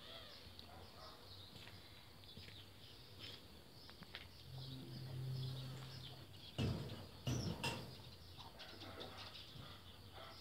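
Birds chirping faintly in the background. A low steady hum runs for about a second and a half midway, and two brief rustling noises follow just after it.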